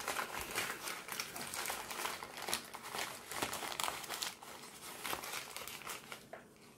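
Crumpled paper advertising flyer rustling and crinkling as a baby's hands scrunch and shake it, in irregular crackles that thin out and get quieter near the end.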